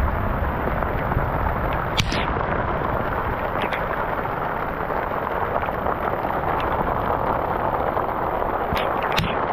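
Loud, steady rushing of floodwater, with a few sharp clicks or crackles over it about two seconds in, near four seconds, and near the end.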